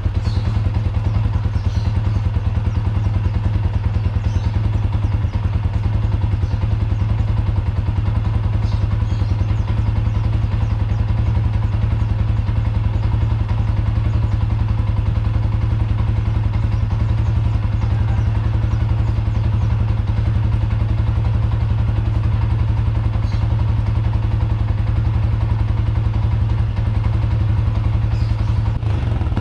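Yamaha Sniper 150's single-cylinder four-stroke engine idling steadily through an aftermarket Mody5 Power Pipe exhaust, with an even, unchanging exhaust note.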